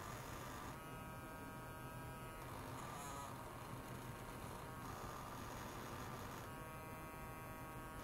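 Electric toothbrush buzzing in short bursts: one starting about a second in and lasting about a second and a half, a brief one near three seconds, and another starting near the end. A steady faint hiss runs under it.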